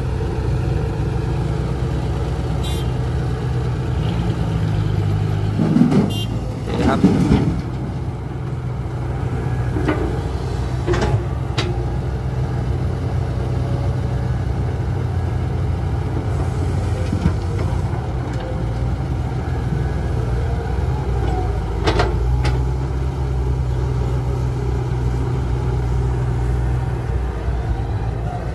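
Diesel engines of a Komatsu HB205-1 hybrid excavator and a dump truck running steadily while the excavator digs and loads soil into the truck. A few sharp knocks and clatters come through, the loudest about six to seven seconds in and again near twenty-two seconds.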